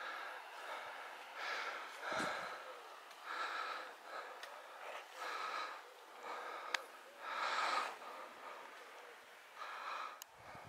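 Heavy, laboured breathing close to the microphone, a puff roughly every second, from a hiker out of breath while climbing a steep path. There is one sharp click about two-thirds of the way through.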